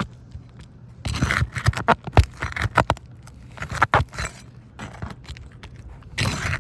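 Brittle asphalt roof shingles being worked loose with a roofing tool: bursts of scraping, crackling and clicks, a little past a second in, around four seconds and near the end. The shingles are too brittle to repair and tear as they are pried up.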